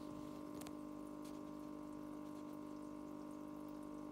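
Steady hum and bubbling of an aquarium's air-driven sponge filter.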